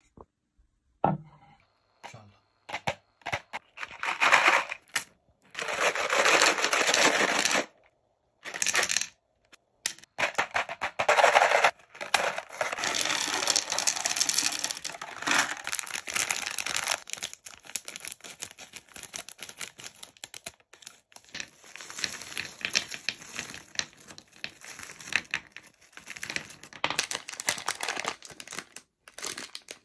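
Mike and Ike chewy candies tipped from a cardboard box, clattering in quick small clicks onto a bamboo platter, with candy packaging torn open and crinkled between pours. Near the end a plastic sweet bag crinkles.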